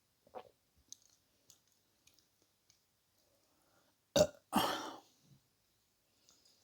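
A person burping loudly about four seconds in: a sharp first crack, then a longer burp lasting about half a second. A faint short sound near the start and a few faint clicks come before it.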